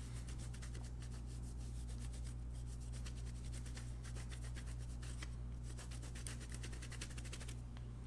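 Microfiber cloth rubbing Brasso polish over a small brass belt buckle in quick, continuous strokes, a soft rapid scratching that stops just before the end.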